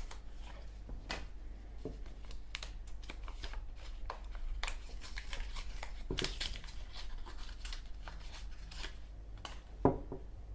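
A Zippo replacement-wick package being opened by hand: crinkling and tearing of the card-and-plastic packaging, with many small clicks and scrapes and one louder knock near the end.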